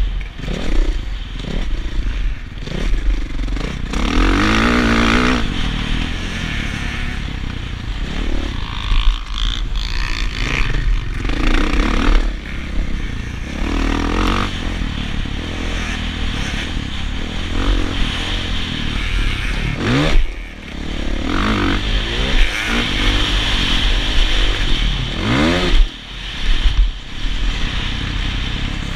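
Motocross bike engine revving hard and easing off again and again as it is ridden around the track, its pitch sweeping up and down with the throttle and gear changes. There are a couple of brief drops in loudness when the throttle is shut, and scraping and rattling come from the bike over the rough dirt.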